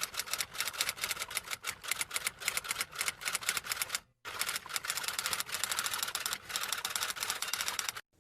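Rapid typing: a quick, uneven stream of key clacks, several a second, pausing briefly about four seconds in and stopping shortly before the end.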